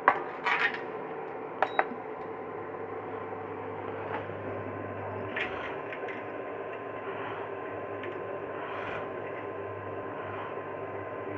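A pot of water set down on an induction cooker with a few knocks, two short beeps from the cooker's controls about a second and a half in, then the cooker running with a steady low hum as it starts heating.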